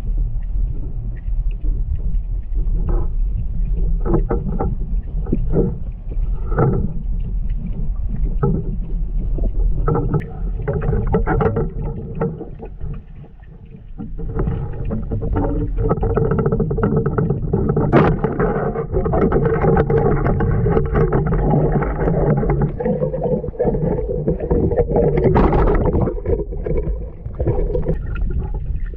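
Muffled underwater sound of river water heard through a submerged camera: a steady low rumble of moving water with scattered clicks and knocks, and a brief lull about halfway through.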